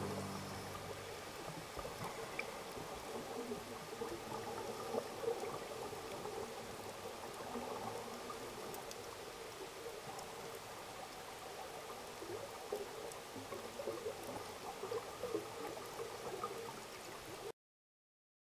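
Underwater recording of scuba divers' exhaled regulator bubbles: faint, continuous bubbling and gurgling with small crackles, cutting off suddenly near the end.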